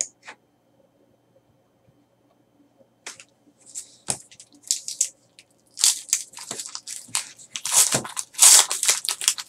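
Trading card pack wrapper being torn open and crinkled by hand: irregular tearing and crinkling that starts about three seconds in and gets busier toward the end.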